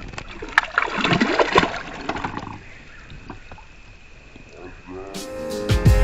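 Water splashing and trickling for about two seconds, then quieter. Music fades in near the end.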